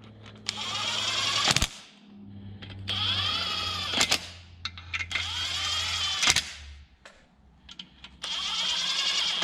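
Cordless power driver running down the smaller case-half bolts on a Subaru EG33 engine block. It makes four short runs of about a second each, each ending in a sharp click as a bolt seats.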